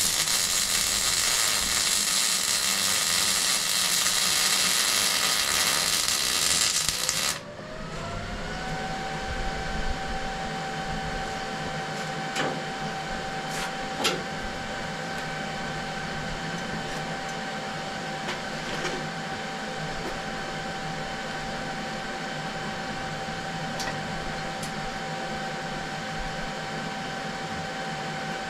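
Welding arc crackling and hissing steadily for about seven seconds, then cutting off suddenly. A machine whine then rises in pitch over a second or so and holds steady, with a few light knocks.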